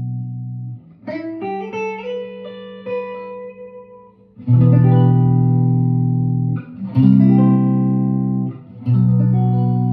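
1958 Guild Aristocrat hollow-body electric guitar being played: a ringing chord fades, then a quick run of single notes, then three strummed chords about two seconds apart, each left to ring.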